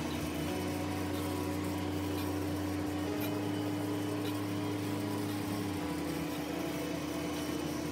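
Large metal lathe running with a steady hum as it turns a heavy steel ring.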